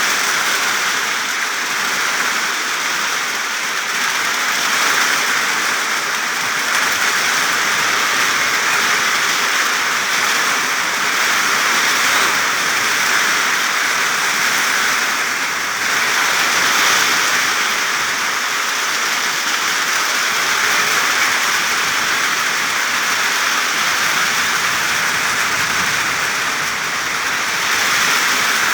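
Steady rain falling on plant leaves: a dense, even patter with no pauses.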